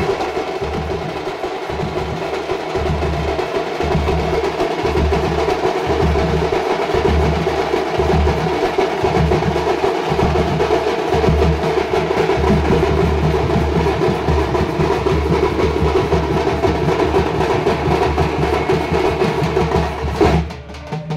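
Street drum band playing: large bass drums struck with sticks beat a steady low pulse under fast, dense rolls on small snare-type side drums. The playing drops away about a second before the end.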